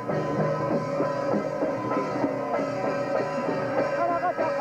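Music with drums and several melody lines that bend up and down in pitch over a held tone.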